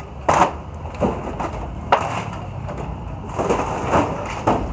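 Hammer blows knocking apart wooden and corrugated-metal stalls: about six irregular sharp strikes and bangs, the loudest near the start.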